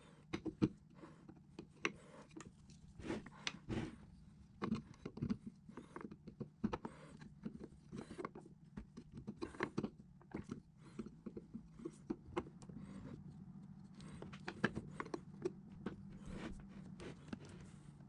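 Hands handling a small electric motor during reassembly: irregular clicks, taps and light scrapes as the end cover is seated on the stator housing and the motor is turned over on a wooden workbench. A steady low hum runs underneath.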